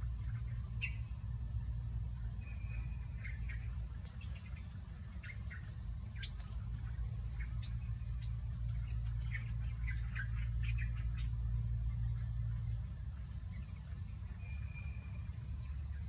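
Steady high-pitched drone of insects, with short bird chirps scattered through it, most of them around the middle, over a low rumble.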